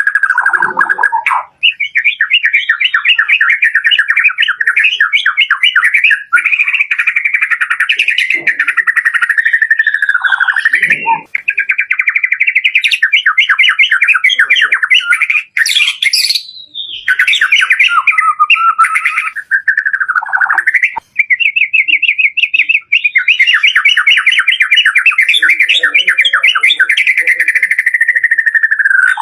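White-rumped shama (murai batu) singing loudly in long, fast trilling phrases of rapidly repeated notes, each run lasting several seconds with short breaks between, and a quick rising whistle about halfway through.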